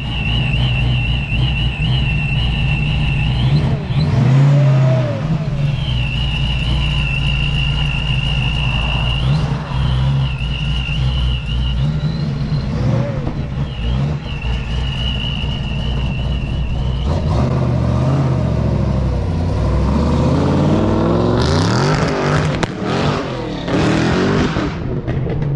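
A car engine running hard on a chassis dyno, with a high wavering whine over the engine note. The revs climb in the last several seconds into a loud, full-throttle stretch.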